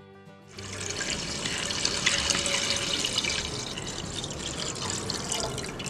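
Full cream milk poured from a bottle into a large cooking pot: a steady, continuous splashing pour that starts about half a second in.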